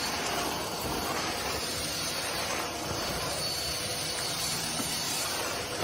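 A steady, even hissing noise with no distinct events.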